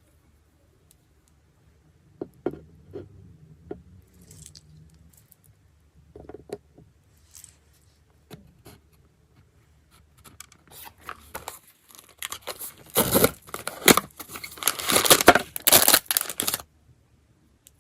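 Blind-box packaging being handled and then torn open: a few scattered taps and rustles, then a burst of loud tearing and crinkling in the last few seconds that stops abruptly.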